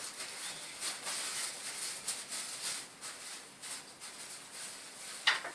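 Jeweller's hand tools working a gold ring: a series of faint, irregular scraping or rubbing strokes on the metal.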